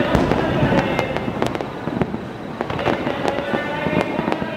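Fireworks display: an irregular run of sharp shell bursts and crackling, a couple of bangs a second with a brief lull in the middle, over a continuous wash of noise from the barrage.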